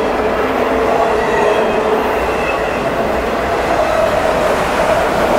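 Autorack freight cars rolling past at speed: a steady, loud rush and rumble of steel wheels on rail, with a faint wheel squeal held over it.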